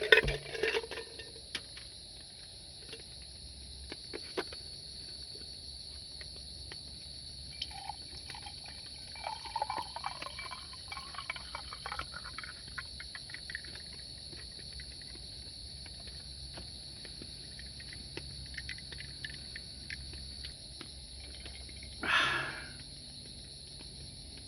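Steady high chirring of insects, a cricket-like chorus, with scattered light clicks and knocks. Near the end a brief louder rustling noise cuts across it.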